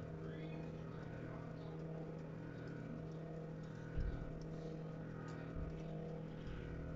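Faint, steady electrical hum of a kitchen appliance, with a soft low thump about four seconds in and a lighter one a little later.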